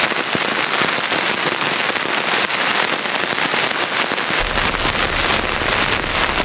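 Heavy rain falling steadily on a tarp and an umbrella: a dense hiss of countless drop hits.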